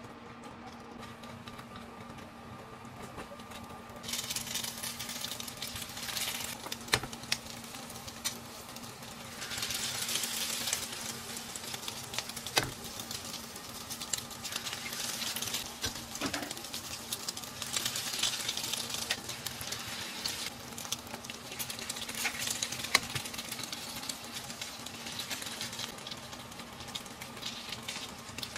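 Cubes of rice-flour cake frying in oil in a nonstick pan: a sizzle that starts about four seconds in and swells in waves as eggs are cracked over the cubes. A few sharp clicks punctuate it.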